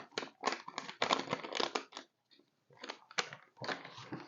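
Crinkling and rustling of a ration-pack hot chocolate sachet being handled and emptied, in uneven bursts with a short pause about two seconds in.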